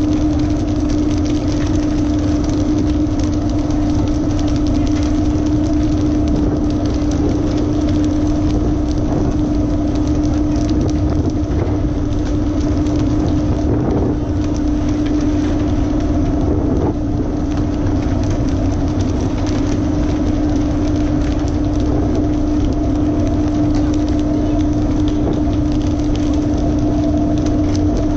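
A fishing boat's engine running steadily: a constant hum over a low rumble, with an even rushing noise from wind and water.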